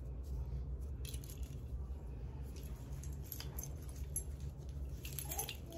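Faint rustling and small metal clinks of keychains and wristlet straps being handled, over a low steady hum.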